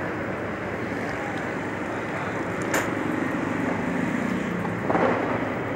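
Steady rushing background noise with one sharp click about three seconds in.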